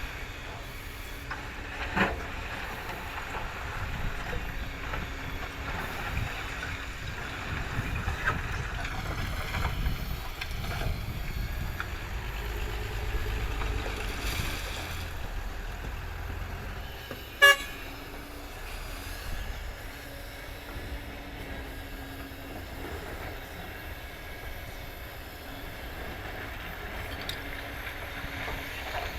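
Excavator and tow truck engines running steadily, with a sharp knock about two seconds in and a loud, short bang about two-thirds of the way through.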